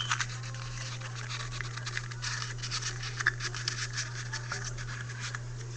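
Sheet of paper being rolled up lengthwise by hand into a tube: irregular crinkling and rustling with small crackles, densest in the middle, over a steady low hum.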